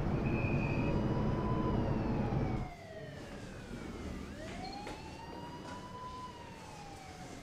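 Emergency vehicle siren wailing in two slow rise-and-fall sweeps, over a low rumble that cuts off abruptly about two and a half seconds in.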